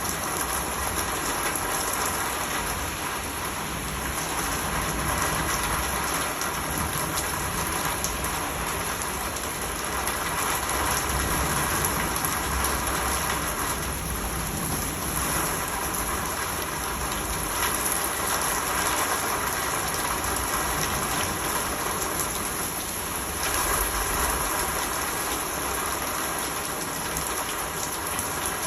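Steady rain falling: an even hiss of drops that swells and eases a little from time to time.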